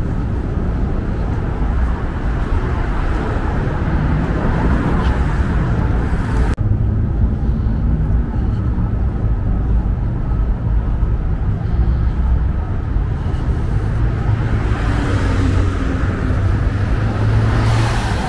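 City street traffic: a steady rumble of cars, with one car passing close by near the end.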